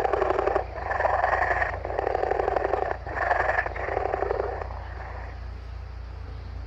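An animal calling: five calls of about a second each, one straight after another, the last fading out about five seconds in.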